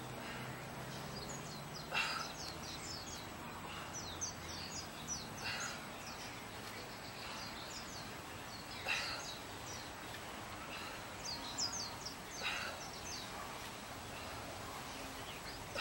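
Small birds chirping over and over in short high notes. A short, louder sound comes back about every three and a half seconds.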